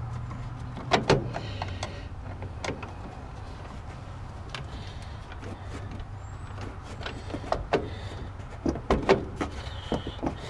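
Screwdriver tightening a hose clamp on a radiator hose: scattered clicks, scrapes and small metal knocks, with a louder cluster about a second in and again near the end.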